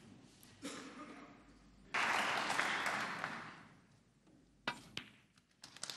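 Snooker-hall audience applauding: the clapping starts suddenly, then fades away over a second or two. A sharp click of snooker balls striking comes near the end, as clapping starts up again.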